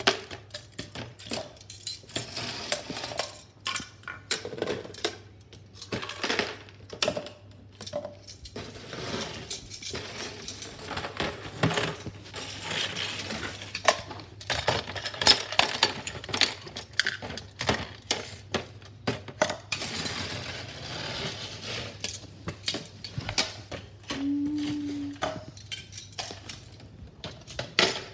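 Metal kitchen tongs clacking and clinking as they grip toy plastic wheelie bins and knock them against a plastic tub, with irregular taps and scrapes of plastic on tile and paper rustling as the bins are tipped out.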